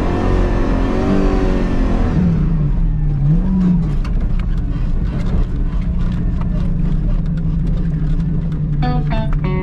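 Truck engine revving up and down as it drives over soft sand, then settling into a steady drone with scattered knocks. Guitar music comes in near the end.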